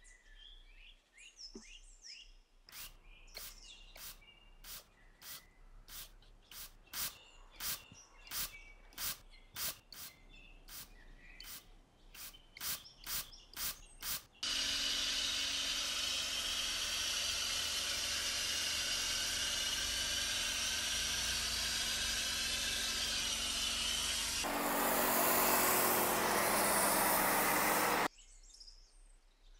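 A trigger spray bottle of pre-wash cleaner squirted again and again, about twice a second, with a short sharp hiss each time. It is followed by the steady hiss of a hose-fed snow-foam sprayer coating the car, which grows louder for the last few seconds and then cuts off suddenly.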